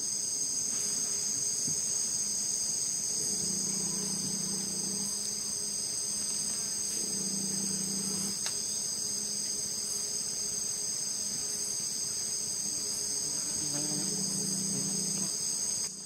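Steady insect chorus in tropical forest, a continuous high-pitched trill in several bands. A low hum comes and goes about three times underneath it.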